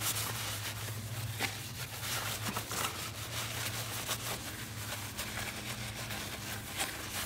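Paper towel rubbing over a lawn mower's muffler casing, an irregular scratchy rustle of wiping strokes, over a steady low hum.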